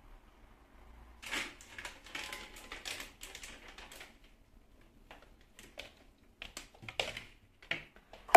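A quick run of light clicks and rustles, then a few scattered single clicks: small objects being handled.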